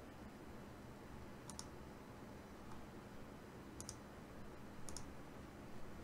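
Three faint, sharp double clicks over quiet room tone, the pairs spaced a second or two apart.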